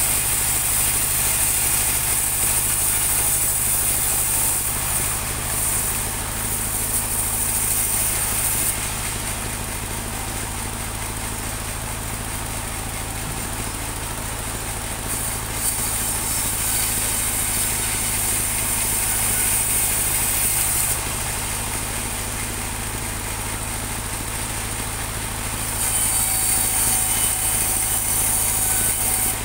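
Portable band sawmill running steadily, with its band blade cutting through a teak log in spells that add a bright, loud hiss: for the first several seconds, again from a little past halfway to about two-thirds through, and near the end.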